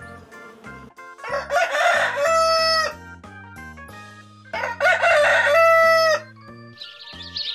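Rooster crowing twice, each cock-a-doodle-doo about a second and a half long and ending on a held note.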